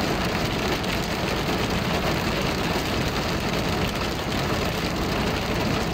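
Heavy rain falling on a car's roof and windshield, heard from inside the car as a steady, dense hiss, with the car's engine running underneath.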